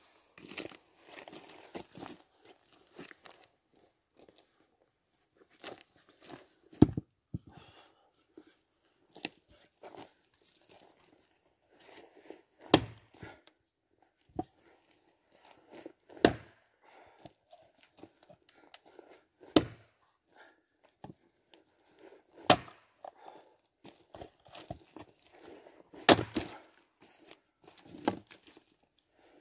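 An axe chopping wood: a series of sharp, separate strikes every three to four seconds, the loudest about seven seconds in, with quieter rustling and shuffling between them.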